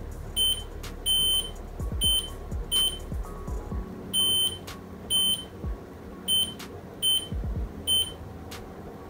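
Multimeter continuity beeper sounding in about nine short beeps at irregular intervals, some brief and some held a little longer, as the probes touch points on the logic board while checking for a short.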